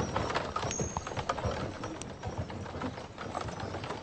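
Horse hooves clip-clopping on a dirt track, an irregular run of knocks.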